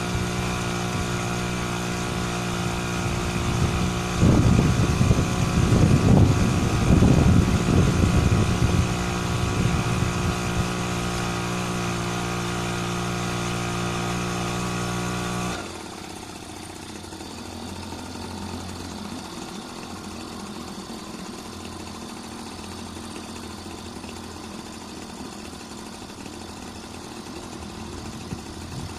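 HDX T2.5 two-stroke outboard motor, fitted with a moped carburettor, running at a steady speed. For several seconds early on a louder rough noise sits over the engine. About halfway through, the steady engine note cuts off abruptly, leaving a quieter, rougher sound.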